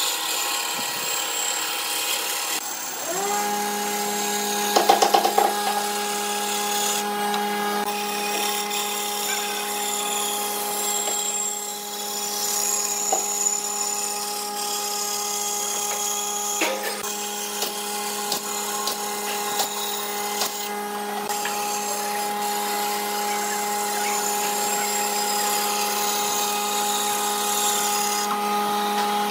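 Band saw running and cutting lengthwise through a thick wooden plank: a steady machine hum that sets in about three seconds in, with a brief rattle about five seconds in.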